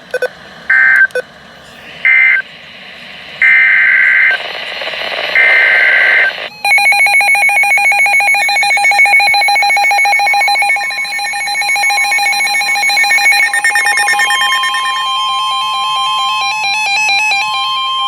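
NOAA Weather Radio emergency alert signalling: the warbling SAME digital data bursts, two short ones and then two longer ones, after which several weather radios sound their pulsing alarm beeps. The steady Weather Radio warning alarm tone joins them about ten seconds in, marking a new warning being broadcast.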